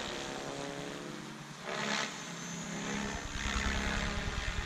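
Electric RC helicopter (Minicopter Diabolo 550) in flight: a steady whine from its rotor and motor, with a brief louder rush about two seconds in.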